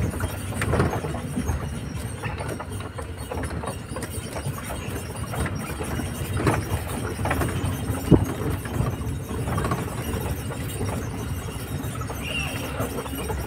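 Open-top safari jeep driving over a rutted dirt forest track: a steady rumble of engine and tyres, with rattles and knocks as the vehicle jolts. The sharpest knock comes about eight seconds in.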